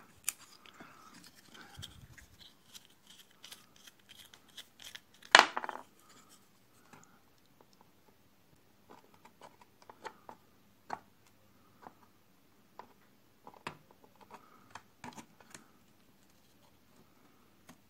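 Scattered light clicks and taps of small parts and tools being handled on a workbench, with one sharp, much louder click about five seconds in.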